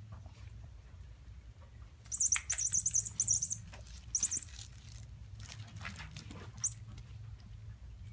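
High, warbling electronic chirps from a small cat toy as a cat bats and wrestles it: a quick run of chirps about two seconds in, a shorter run a second later, and one last rising chirp near the end, with light taps and scuffs of the toy against the floor between them.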